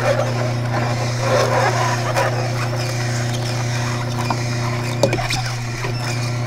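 Samson Advanced horizontal single-auger slow juicer running, its motor giving a steady hum while the turning auger crushes kale leaves fed into the chute, heard as uneven crackling over the hum. A few short sharp clicks come through, about two and five seconds in.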